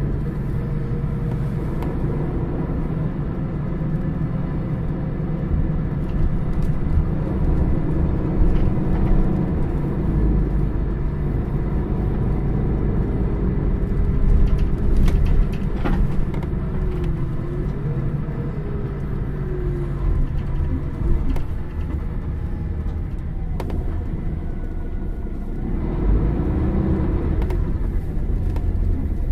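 Mercedes-Benz O550 Integro coach's diesel engine idling steadily, a low rumble, with brief rising-and-falling sounds about midway and near the end.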